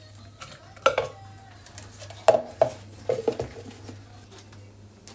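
Dishes and utensils clinking in handling: a sharp clink about a second in, two more near the middle, and a quick cluster a little after three seconds, each with a short ring. A faint low hum runs underneath.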